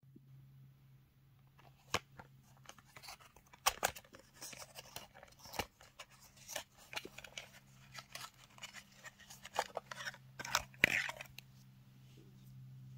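A small cardboard box and its paper insert being opened and handled by hand: crinkling and rustling with many sharp clicks and taps, the loudest burst about eleven seconds in. A low steady hum runs underneath.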